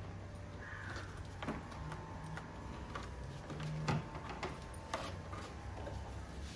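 Plastic trim panel above a car's grille being pried up with a plastic trim tool: a few sharp clicks and small knocks as its clips let go, over a low steady hum.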